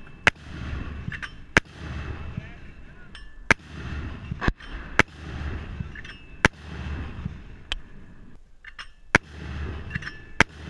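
81mm mortar fire: a string of about nine sharp reports, roughly one to two seconds apart, with a low rumble between them.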